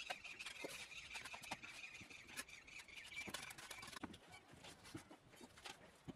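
Faint clicks and knocks of bricks being set and handled while a wall is built. For about the first four seconds a thin, steady high tone sounds along with them, then stops.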